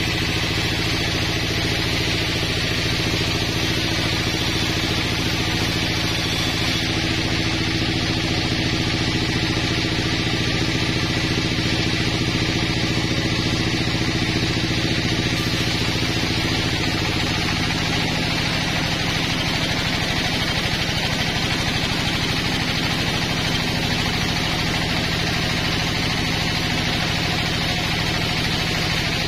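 Sawmill band saw running and cutting through a pine beam: a steady machine hum with the hiss of the blade in the wood. The hum shifts slightly in pitch a little past halfway.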